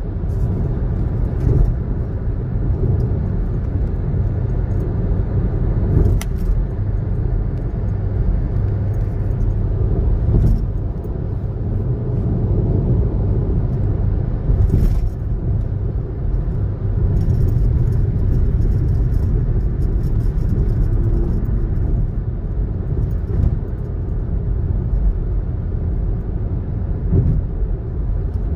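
Steady in-cabin road noise from a Hyundai i20 cruising on an expressway: a low rumble of tyres and engine, with a few light clicks from inside the cabin.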